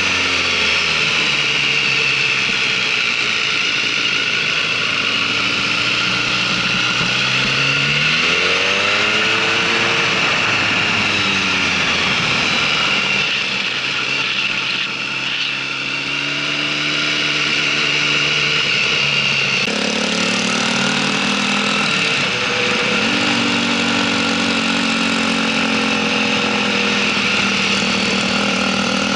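Motorcycle engine heard on board while riding a track, rising and falling in pitch as the bike speeds up and slows through the corners, over a steady rush of wind. About twenty seconds in the sound changes abruptly to a steadier, deeper engine note.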